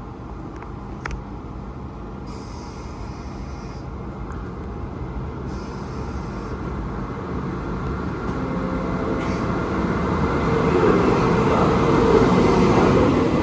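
Siemens Vectron electric locomotive hauling Intercity coaches pulling in alongside the platform, its running noise and motor hum growing steadily louder from about eight seconds in to a peak near the end. Two brief hisses sound in the first half.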